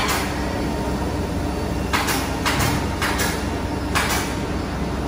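Four-head CNC machine running with a steady low hum, broken by five short hissing bursts spaced roughly half a second to two seconds apart.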